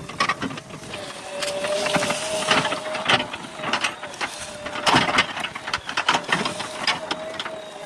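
JCB backhoe loader at work: a steady whine under irregular clanks, knocks and scrapes.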